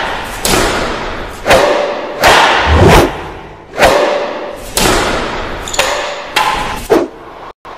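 Cinematic logo-intro sound effects: a run of heavy hits, about one a second, each with a long reverberant tail. The sequence drops out abruptly near the end.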